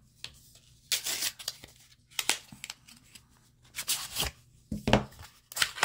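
Cardboard eyeshadow palette box being opened by hand: several short rustles and scrapes of the packaging, about a second apart.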